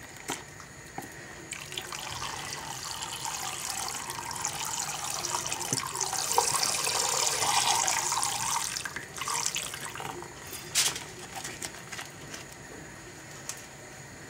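Juice pouring from a small carton into a pot of hot liquid, a splashing stream that grows louder and stops about nine seconds in. A single sharp knock follows a couple of seconds later.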